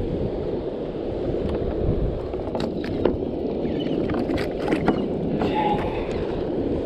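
Steady wind rumble on the microphone with water lapping against a kayak hull, and a few light clicks and knocks in the middle as a small flounder is handled at the side of the kayak.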